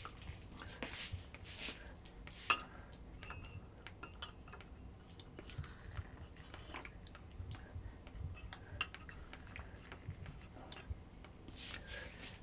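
Scattered light clicks, knocks and clinks in a quiet room, with one sharp knock about two and a half seconds in.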